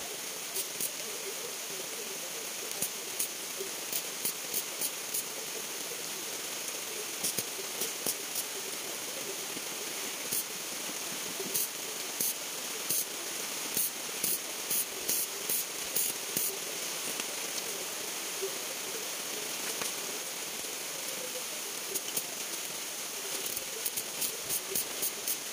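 Stick (arc) welder's arc crackling and hissing as it welds steel roller chain onto old car brake shoes. Sharp crackling pops come in runs, thickest through the middle and again near the end.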